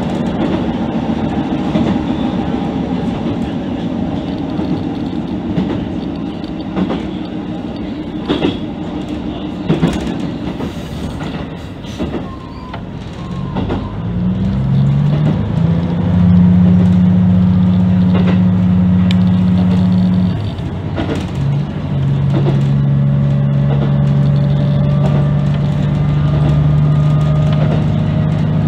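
KiHa 75 diesel railcar running along the line, heard from the cab: wheels clicking over rail joints in the first half. About halfway through the engine drone rises in steps and then holds steady under power, drops out briefly and comes back, as with a gear change.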